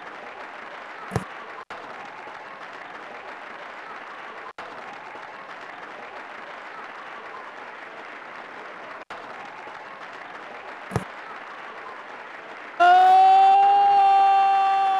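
A steady hiss of noise with a couple of sharp clicks. About two seconds before the end, a loud sustained tone with many overtones starts suddenly and slowly fades.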